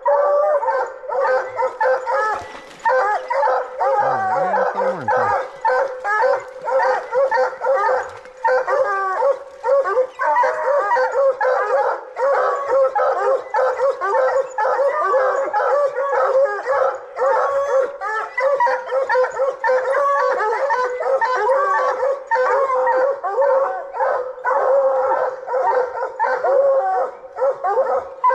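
Several coonhounds barking and bawling over one another without a break, the steady chorus of hounds treeing a raccoon.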